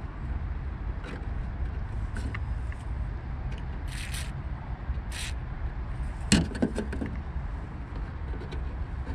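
Small handling sounds of work on a car tailgate's trim and connector: light scrapes and clicks, two short hissing bursts about four and five seconds in, and a sharp clink a little after six seconds, over a steady low rumble.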